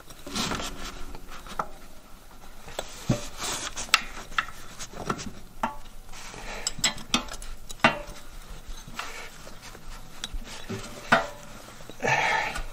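Hand tools working the bolts of an International Harvester 300 Utility's hydraulic control valve: a ratchet and wrench clicking, clinking and scraping on metal as the cover bolts are started and tightened, in scattered sharp clicks with a louder burst of noise near the end.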